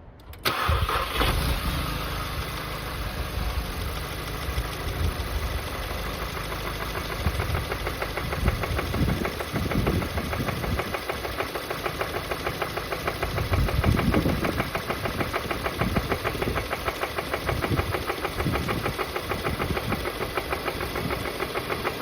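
Volkswagen Golf GTI Mk7's CXCB 2.0-litre turbocharged four-cylinder engine starting about half a second in, then running with a rapid metallic knock that keeps pace with engine speed, swelling as it is revved up a few times. This is rod knock from failed rod bearings, which the owner suspects came from the car being run without oil after its plastic oil pan broke.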